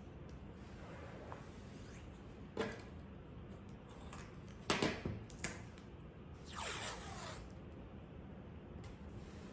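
Masking tape being peeled off its roll, a longer ripping strip of sound that falls in pitch near the end, with a few sharp clicks of the roll and tape being handled about halfway through.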